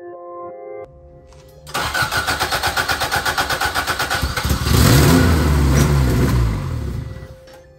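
Toyota AE86's 4A-GE twin-cam four-cylinder turned over by the starter in a fast, even run of pulses for about three seconds. It then catches, revs up and the revs fall away near the end.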